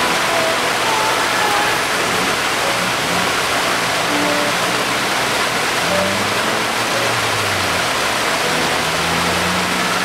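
Small waterfall cascading over boulders: a steady, loud rush of falling and splashing water.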